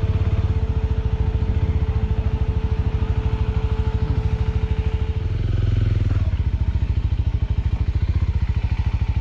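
Small motorcycle's engine running at low revs, a steady rapid beat of firing pulses that swells slightly about six seconds in.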